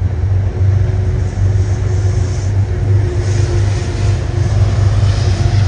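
Train running past, a loud steady low rumble with a steady hum over it.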